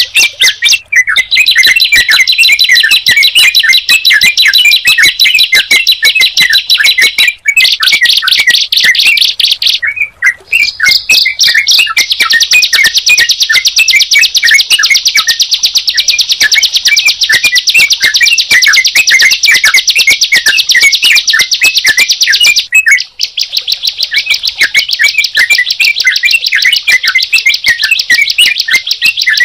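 Recorded birdsong of a ciblek (prinia) and a trucukan (yellow-vented bulbul) played together: a loud, continuous, very fast high-pitched chattering of rapidly repeated notes. It breaks off briefly a few times, about a second in, around 7 and 10 seconds, and near 23 seconds.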